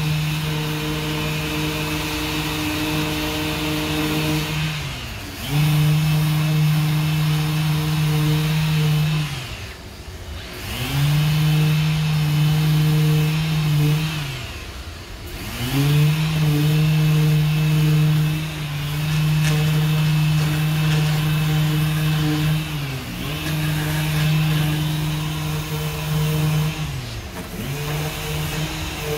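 Random orbital sander running on body filler: a steady motor hum with a hiss of abrasion. Its pitch briefly sags and comes back up about five times.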